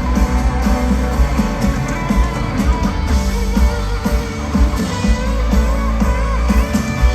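Live rock band playing an instrumental passage, guitars prominent over a steady beat.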